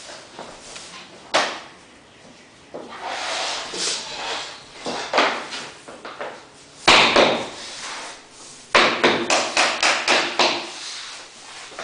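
Laminate floor planks being handled and knocked into place. A sharp knock about a second in, then scraping and rustling of the boards, a loud bang near the middle, and a run of quick, even taps, about three a second, near the end.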